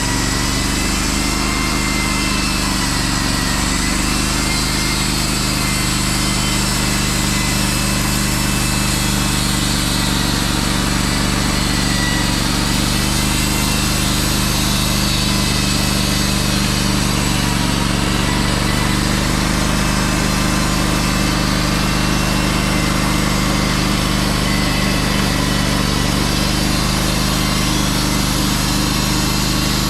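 Wood-Mizer portable band sawmill running steadily as it saws a white pine log: the engine drone under the hiss of the band blade cutting.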